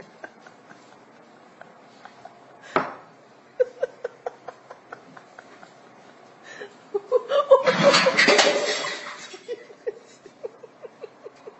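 A person laughing in short, repeated bursts, about four a second, breaking into a loud outburst about seven seconds in that lasts roughly two seconds. A single sharp knock is heard near three seconds.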